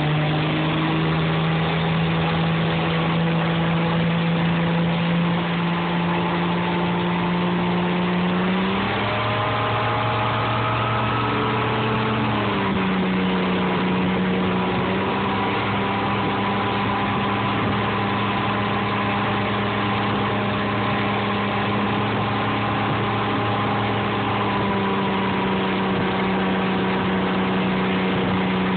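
Motorboat engine running steadily at speed under tow load, over a constant rush of wind and churning water. The engine's pitch shifts for a few seconds about a third of the way through, then settles again.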